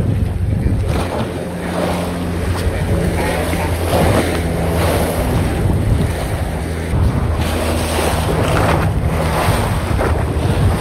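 Small waves washing and splashing against the base of a concrete seawall, with gusts of wind on the microphone. A steady low hum runs underneath.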